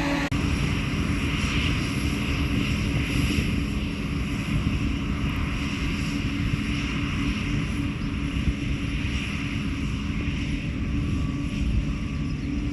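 Heavy diesel farm machinery running steadily under load: a dense, deep rumble with faint high whines over it.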